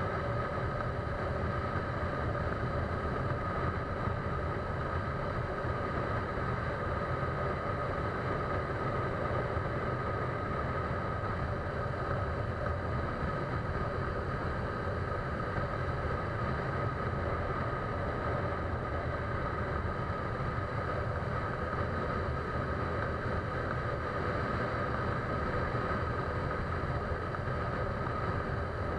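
A vehicle running steadily: an even low rumble with two steady tones held above it, unchanging.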